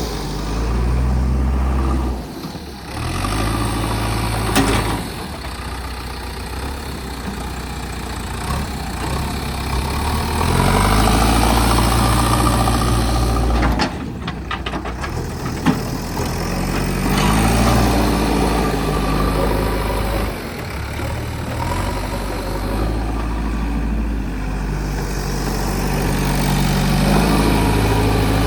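JCB 3DX backhoe loader's diesel engine running, its pitch falling and rising several times as it is revved up and eased off, with a single sharp knock about halfway through.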